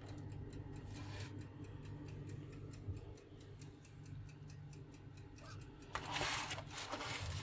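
Steady quick ticking, about four ticks a second, over a low steady hum, like a kitchen oven's clockwork timer running. About six seconds in comes a brief louder rustling clatter.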